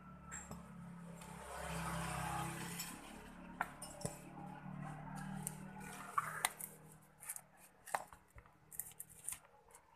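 Metal tools clinking and knocking: a scraping rustle about two seconds in, then a string of sharp clinks through the second half, over a low steady hum.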